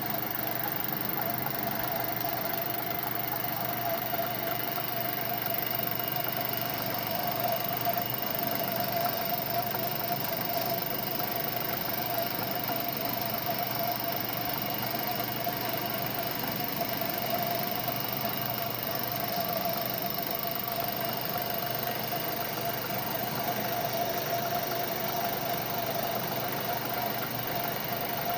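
Lathe running steadily: a continuous mechanical hum with a steady mid-pitched whine.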